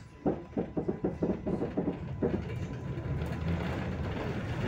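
RVZ-6M2 tram rolling along street track. For about the first two seconds its wheels clack sharply over the rails, several knocks a second, as they cross track points. Then a steady rolling rumble takes over and grows louder.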